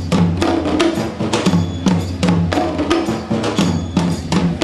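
Sri Lankan traditional drums played together in a fast, steady rhythm of sharp strokes over deeper pitched drum tones.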